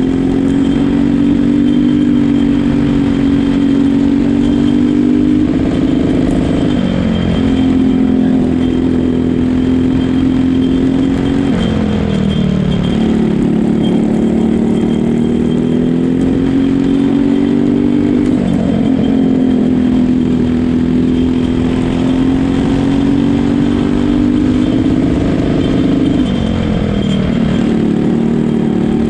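Briggs & Stratton LO206 single-cylinder four-stroke kart engine running hard close to the microphone. Its pitch dips sharply four times, about every six seconds, as the kart slows for corners, then climbs steadily back up on the straights.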